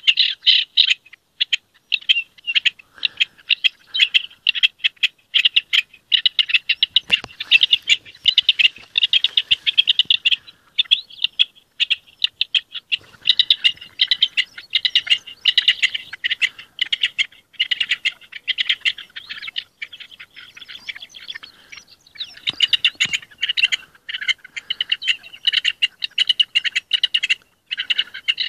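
Rock partridge (coturnice) singing its breeding-season song: long runs of fast, rhythmic chattering notes, breaking off briefly about a third of the way in and again later.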